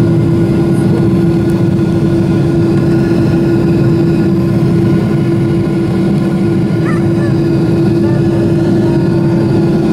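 Boeing 777-300ER's GE90-115B turbofan engines running steadily at climb thrust just after takeoff, heard inside the cabin beside the wing: a constant loud drone with one steady hum note over it.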